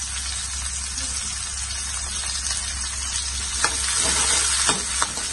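Chopped onion and fennel seeds sizzling steadily in hot oil in a non-stick kadai. In the second half a spatula stirs them, the sizzle grows a little louder, and the spatula scrapes the pan a few times.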